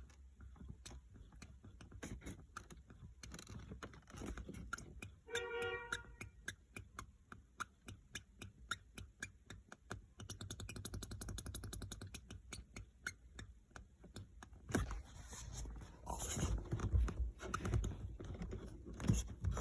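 Lexus LX570 front dashboard panel creaking and clicking inside the cabin over bumps: a long run of small irregular creaks and ticks, a short squeak about five seconds in, a rapid buzzing creak for a few seconds in the middle, and heavier knocks near the end. The creak comes from under the front panel, where it rubs against the body.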